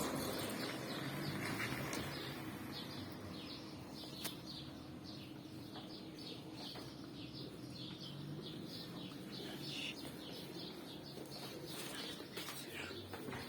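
A small bird chirping, a long run of short high chirps several a second.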